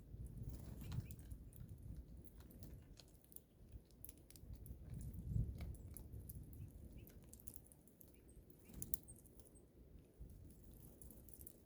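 Faint, scattered clicks and taps of small birds pecking and cracking seed at a feeder, over a low steady rumble.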